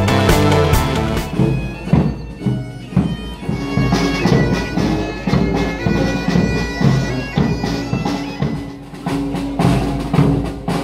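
Marching pipe band playing: bagpipes with their steady drone under the melody, kept in time by regular bass-drum beats.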